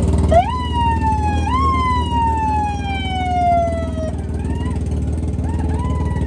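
Off-road race UTV's engine idling steadily. Over it comes a long high-pitched tone that rises, lifts again after about a second, then slides slowly downward for about two and a half seconds. Shorter high calls follow near the end.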